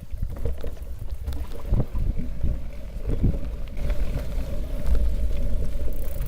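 Wind buffeting the microphone of a handlebar-mounted action camera, heard as a low rumble, with scattered knocks and rattles from a mountain bike riding over a rough forest track.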